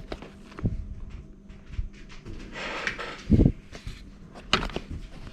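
Handling noise from working on a plastic quartz wall clock: scattered small clicks and knocks, a short rushing noise a little past halfway, then a dull thump, the loudest sound, just after it.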